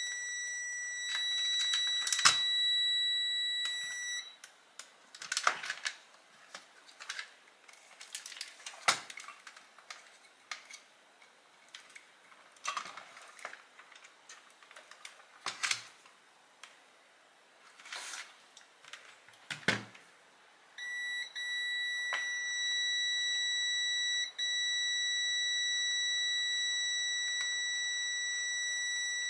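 Steady high-pitched electronic beep tone that cuts off after about four seconds, followed by scattered clicks and knocks. The tone comes back about twenty-one seconds in and holds, with one brief break.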